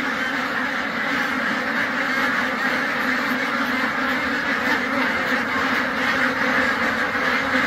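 A flock of thousands of white domestic ducks quacking all at once, a dense, steady din in which no single call stands out.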